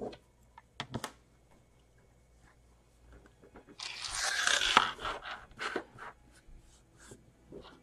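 Small plastic LEGO pieces being handled on a tabletop: a few sharp clicks, then a scraping rustle lasting about a second midway, followed by more scattered light clicks.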